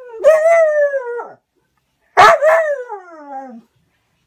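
A dog giving two drawn-out, howling whines of complaint, the sound of an annoyed dog demanding play. The first call holds its pitch and drops off at the end; the second starts sharply and slides down in pitch.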